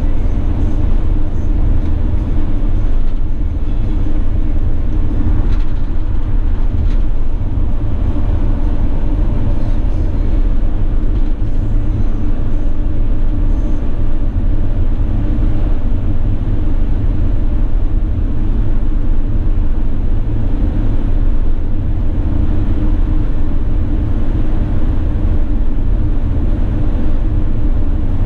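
Steady in-cab drone of a 2016 Mercedes-Benz Sprinter 519 CDI minibus cruising at motorway speed: its 3.0-litre V6 diesel running under a constant load, mixed with tyre and wind roar.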